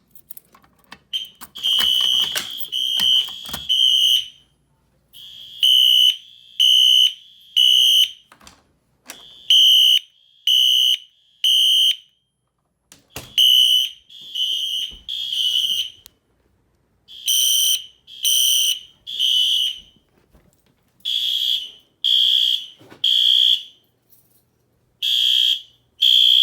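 Fire alarm horns sounding in the temporal-three (code 3) evacuation pattern: three loud, high-pitched beeps of about half a second each, then a short pause, repeating.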